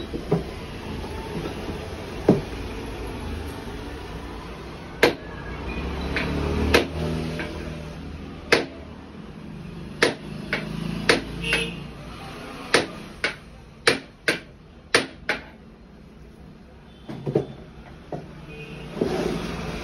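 A series of sharp knocks and clicks at irregular intervals, bunched most closely between about ten and fifteen seconds in, over a steady low rumble.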